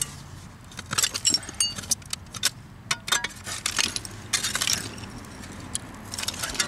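Hand digging in old privy fill: scraping in the dirt with a quick run of sharp clicks and several short ringing clinks of glass and china pieces, and a couple of longer scrapes around the middle.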